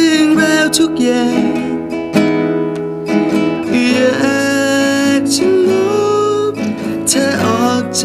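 A man singing a song to his own classical nylon-string guitar accompaniment.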